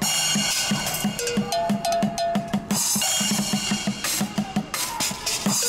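Street drummer playing a homemade kit of plastic buckets, tins and cymbals. A fast, even beat on the bucket drums with cymbal crashes on top.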